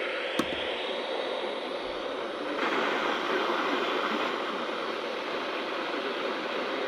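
Steady background hiss. It grows a little louder for about two seconds partway through, with one sharp click near the start.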